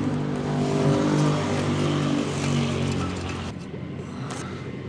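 A motor vehicle's engine running steadily close by, loudest about a second in, then fading out after about three and a half seconds.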